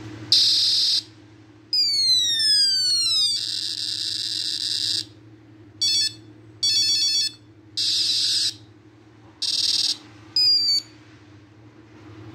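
Battery-powered electronic sound effects from a Majorette Sonic Flasher toy police helicopter, set off by pressing its buttons: about eight separate high-pitched electronic blasts, falling sweeps and pulsed beeps, with short pauses between them.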